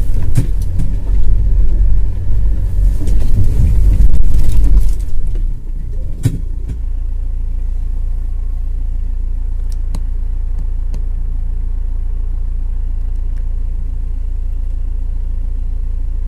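Off-road SUV engine working hard with a loud, uneven low rumble for about five seconds, then dropping to a steady low idle hum, with a brief knock soon after.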